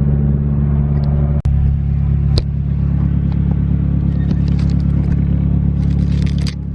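Car engine and road noise heard inside the cabin of a moving car, a steady low drone. It drops out briefly about a second and a half in, a sharp click follows a second later, and light clicking and rattling comes near the end.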